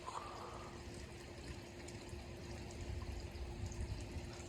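Harbor Breeze Gaskin ceiling fan running on its low setting: a faint, steady motor hum under an even rush of air from the spinning blades.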